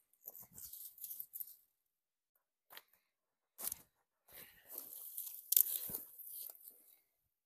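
Thin twiggy brush branches rustling and crackling as they are handled and piled onto a heap. The sound comes in short bursts with silent gaps, and the longest, loudest rustle runs from about four to seven seconds in.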